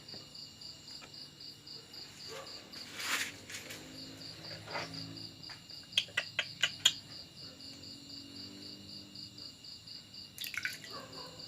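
Steady insect chirping, a high pulsing trill at about four pulses a second, like a cricket. A short rushing burst comes about three seconds in, and a quick run of five sharp clicks, the loudest sounds, about six seconds in.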